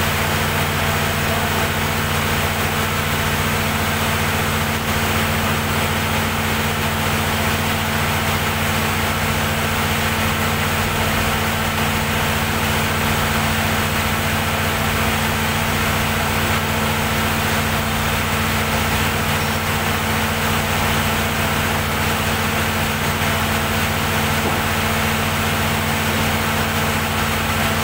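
Perkins diesel generator set running steadily at constant speed, a loud, even low engine drone that does not change.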